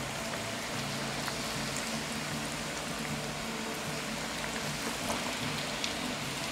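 Hot oil sizzling and crackling steadily as breaded potato-and-cheese croquettes deep-fry, with a couple of sharper pops near the end.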